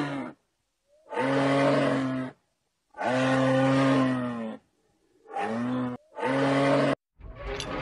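Deer calling: the end of one call, then four low, drawn-out calls about a second or more apart, each separated by dead silence. Just before the end a rising rushing noise starts.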